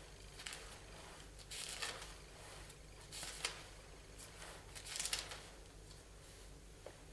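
Faint, brief rustling noises, several over a few seconds, over a low steady hum.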